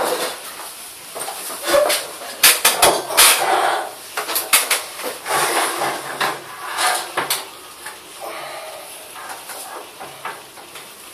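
Car headlight units of hard plastic being picked up and handled on a wooden table: scattered clicks and knocks, with rustling between them.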